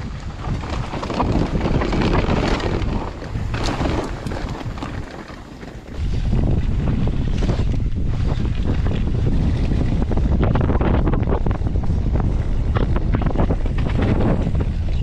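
Wind buffeting the microphone of a mountain bike ridden fast downhill on loose volcanic dirt, with rattles and crackles from the ride. It drops quieter a few seconds in, then comes back loud suddenly near the middle and stays a steady rumble.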